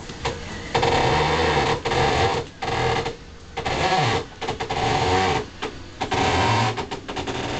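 Hand chain hoist rattling in repeated pulls, about a second of clatter per pull with short gaps between, as it lifts a boat engine.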